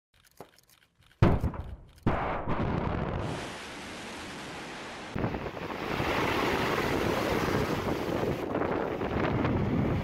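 Intro sound effects: a sudden blast a little over a second in and a second hit about a second later, followed by a steady rushing noise. From about five seconds, heavy surf breaking on the shore with wind buffeting the microphone.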